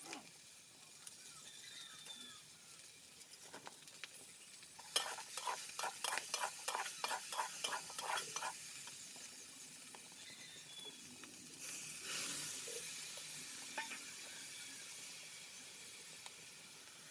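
A spoon stirring and scraping food in a pan, a quick run of clicks lasting a few seconds, followed by food sizzling in hot oil.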